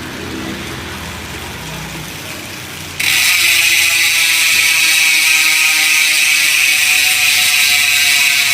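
Maxzone Strokes 1.0 rear hub with three pawls freewheeling: the pawl clicking comes in suddenly about three seconds in and runs on as a loud, continuous high-pitched buzz while the wheel spins.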